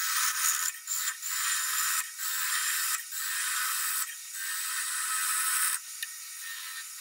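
A spindle gouge cutting the stem of a wooden spinning top as it turns on a lathe: a scraping noise in repeated passes about a second long each, dropping quieter near the end.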